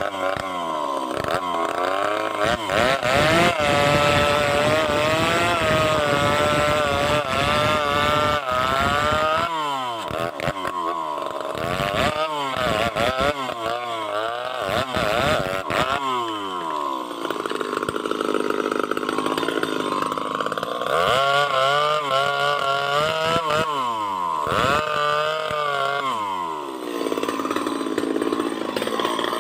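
Two-stroke chainsaw running hard while felling a tree, its engine pitch repeatedly rising and sagging as it bogs down under load in the cut, with several sharp drops back to a low speed.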